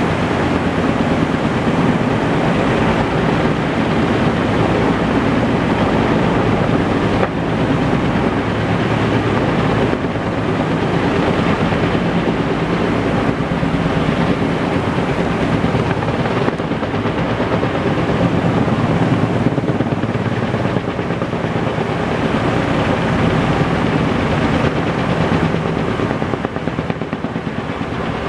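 Logging helicopter's rotor beating overhead in a rapid, steady chop, dipping slightly near the end.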